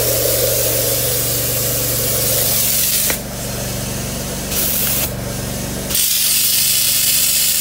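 Water spraying hard from a soft-wash hose nozzle onto concrete, a loud steady hiss over a steady motor hum from the running booster pump system. The hiss softens twice, about three and five seconds in. The flow holds full with no pressure drop.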